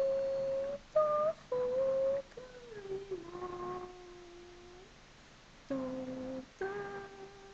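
A woman's solo voice singing a slow Cantonese song unaccompanied, in long held notes with a pause of about a second before the next phrase.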